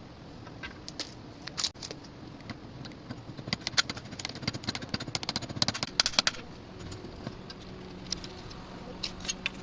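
A run of quick metallic clicks and clinks, densest between about three and six seconds in, with a few single clicks before and after. A low steady hum comes in near the end.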